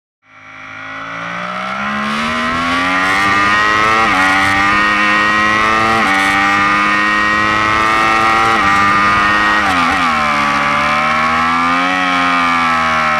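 Yamaha R1 inline-four engine accelerating hard on track, fading in at the start and rising in pitch, with three sudden drops about two seconds apart as it shifts up through the gears. Near the end the engine note falls away, rises briefly and falls again, over a steady rush of wind and tyre noise.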